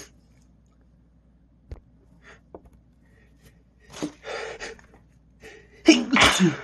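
A man's sneezing build-up: a gasping breath about four seconds in, then a loud, sudden sneeze near the end.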